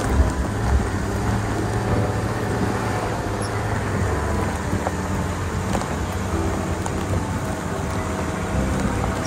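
Off-road 4x4 engine running steadily while the vehicle drives a rough track, with two low knocks in the first second.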